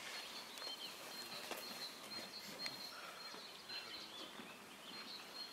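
Quiet outdoor ambience with small birds chirping, a thin high tone that comes and goes, and a few soft clicks.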